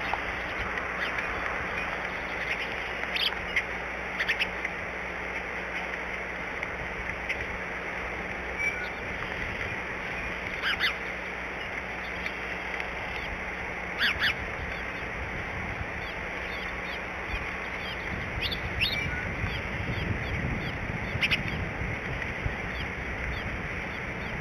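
Steady hiss of cold rain, with brief calls from other birds about six times, some of them in quick pairs.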